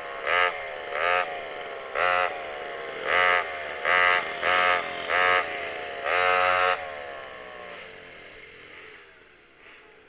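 Vintage kart's pair of McCulloch 5.3 cu in (87 cc) two-stroke saw engines revved in about nine short blips, the pitch sagging back after each one. Near the end the engine note drops and fades away.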